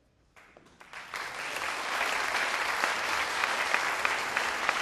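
Audience applauding: a few scattered claps about half a second in, quickly building into steady applause.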